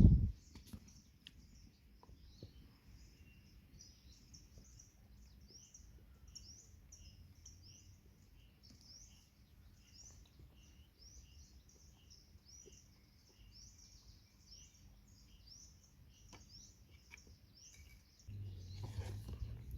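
A songbird chirping over and over, short high notes about two a second, in quiet forest ambience. A loud thump right at the start, and a louder low rumbling noise coming in near the end.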